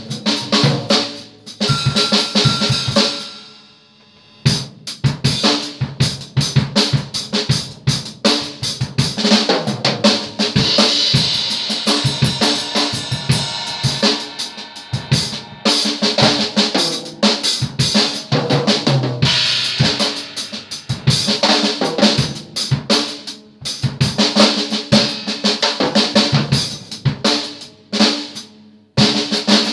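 Acoustic drum kit played in quick, busy fills across the toms, snare, bass drum and cymbals. The playing stops and lets ring about four seconds in, then starts again, and breaks off briefly just before the end.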